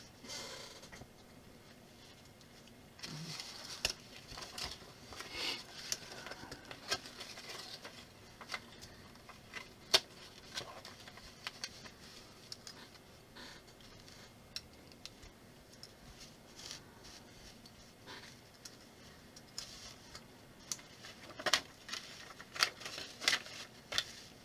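Small plastic Playtive building bricks being picked from a felt mat and pressed together by hand: scattered light clicks and ticks. A paper instruction leaflet rustles, most clearly near the end.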